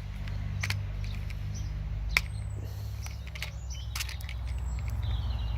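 A few short, sharp clicks of small objects being handled, the strongest about two seconds in, over a steady low rumble, with birds chirping faintly.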